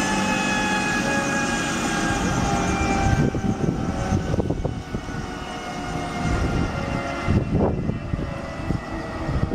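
Police helicopter's turbine engines winding down after shutdown: several whine tones fall slowly in pitch and fade out about three seconds in. After that comes a low rumble with a few irregular thumps.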